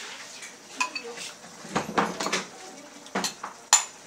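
Metal tongs clinking and scraping against a ceramic bowl and a metal wok as leafy greens are pushed from the bowl into the pan. A series of short clatters, busiest around the middle, with one sharp clink near the end the loudest.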